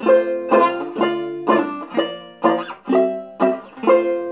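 Banjo strumming chords in a steady rhythm, about two strums a second: the instrumental introduction before the singing comes in.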